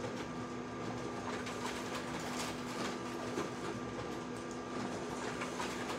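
Low room noise with a steady electrical hum and a few faint clicks; no singing is heard yet.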